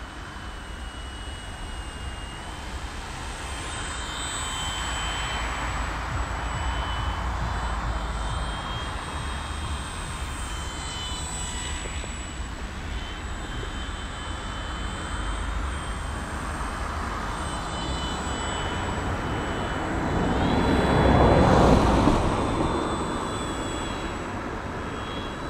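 Radio-controlled trainer model airplane in flight, its motor and propeller whining steadily with a few small steps in pitch as the throttle changes. It grows much louder as it passes close about twenty seconds in, then fades away.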